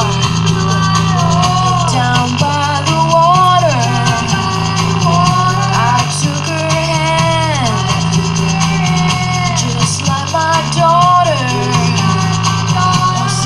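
A rock song played loud, with a singer over drums, bass and guitar.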